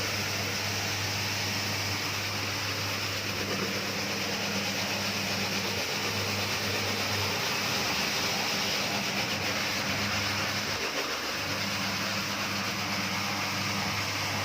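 Homemade electric carpet-scrubbing machine running steadily: a motor hum under a continuous brushing hiss, the hum wavering briefly a couple of times.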